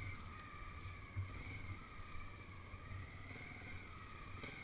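Faint, steady engine note of trials motorcycles idling, the pitch wavering slightly, over a low rumble of wind on the microphone. A brief soft knock about a second in.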